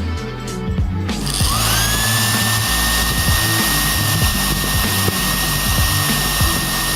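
Hair dryer switched on about a second in: its motor and fan whine rises quickly to a steady high pitch over a rush of air, and starts to wind down at the very end.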